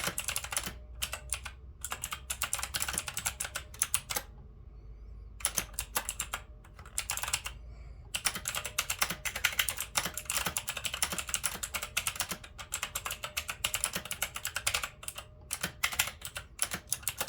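Typing on an Onn mechanical keyboard: fast runs of sharp key clicks, broken by short pauses of about a second, the longest about four seconds in.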